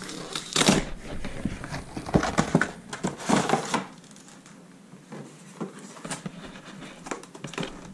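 Cardboard and clear plastic packaging of a Pokémon card collection box being handled and opened: rustling, scraping and crinkling, with a few louder bursts in the first four seconds, then quieter light clicks and taps.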